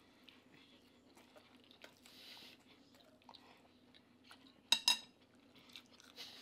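Close-miked chewing and small mouth and utensil clicks of people eating. About two-thirds of the way through, metal cutlery clinks sharply on a plate twice in quick succession.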